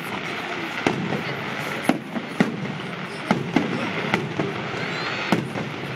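Fireworks salute going off: about seven sharp bangs at irregular intervals, two of them close together a little past the middle, over a steady din of noise.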